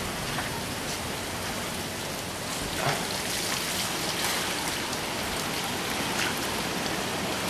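Heavy rain falling steadily on brick paving and grass, with a few sharper ticks standing out.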